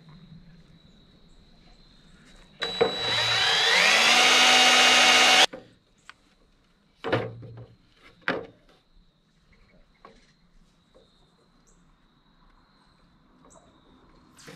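Power drill running for about three seconds, its pitch rising as it speeds up, then stopping sharply. Two short knocks follow.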